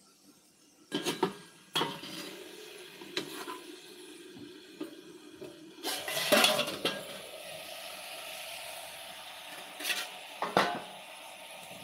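Scattered sharp clinks and knocks of household clatter, about nine in all at uneven gaps, the loudest a cluster about six and a half seconds in and a pair near the end. A steady hiss sets in about six seconds in.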